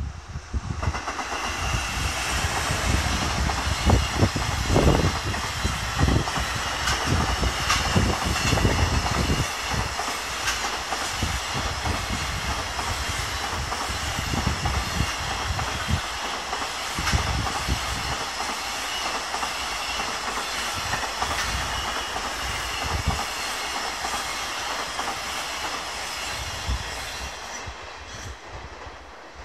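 JR Freight container train hauled by an EF210 electric locomotive passing close by at speed, its wheels clattering rhythmically over the rail joints. The sound swells in about a second in and dies away near the end as the last wagons go by.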